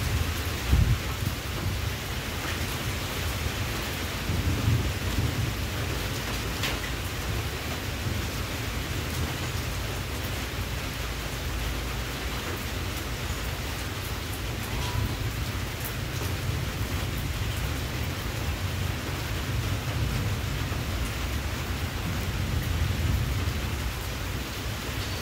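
Steady rain falling, an even hiss with a continuous low rumble underneath that swells a little a few seconds in and again near the end.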